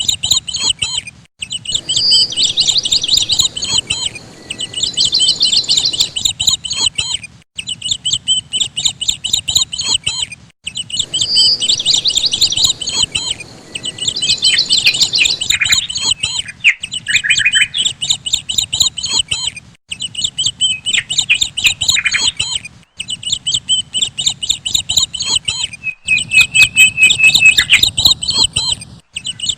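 Small birds chirping rapidly and loudly, many high chirps a second, broken by brief pauses every few seconds.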